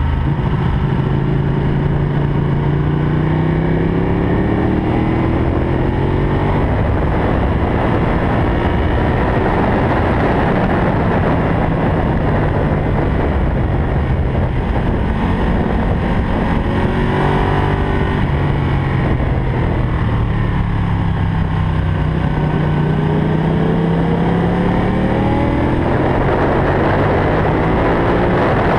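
Ducati Panigale Tricolore's V-twin engine at racing speed, revs climbing through the gears and dropping back several times as it accelerates out of corners and brakes into them.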